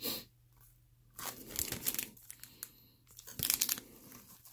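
Bubble wrap and foil trading-card pack wrappers crinkling and rustling as packs are handled in a packing box, in three short bursts.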